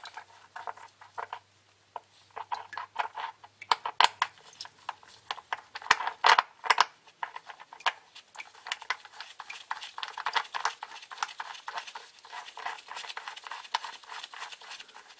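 Oil drain plug being turned back into the oil pan of a 2006 Dodge Dakota by a gloved hand: a run of light, irregular clicks and taps.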